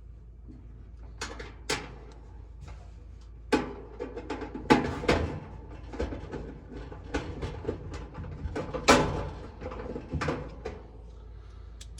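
Sheet metal dryer panel being handled and fitted back into place: irregular knocks, clanks and rattles, a few louder metallic hits about five and nine seconds in.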